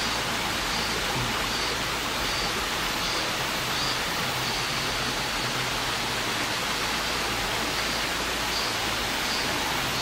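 Clear mountain stream flowing down its valley: a steady rushing of water.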